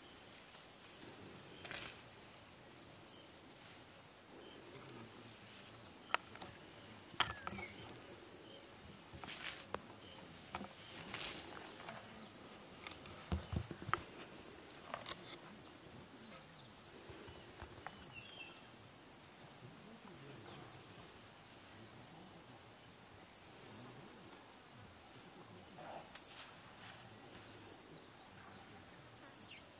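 Crickets and other insects chirp steadily, with scattered sharp snaps, cracks and rustles of leaves and branches as an African bush elephant browses in the thicket. The cracks cluster around the middle, and a few short high insect buzzes come in the second half.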